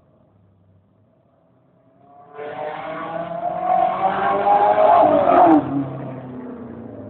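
1986 Volkswagen Gol 1.6 engine with a 4x1 exhaust header, revved up about two seconds in. The exhaust note climbs for about three seconds, then falls quickly back to a low idle.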